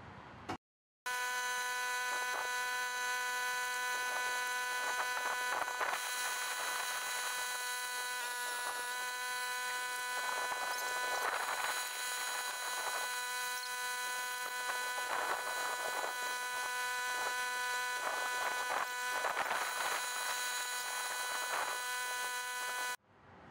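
A steady electric motor buzz at an unchanging pitch. It starts abruptly about a second in and cuts off sharply near the end, with irregular scraping swells of noise over it.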